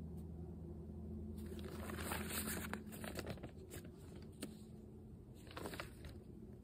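Paper pages of a spiral-bound songbook being leafed through, rustling and crinkling, with a louder rustle about two seconds in and again near the end. Underneath, the last acoustic guitar notes ring and fade out over the first few seconds.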